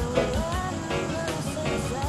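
Background music: a guitar-backed song with a steady beat and a gliding melody line.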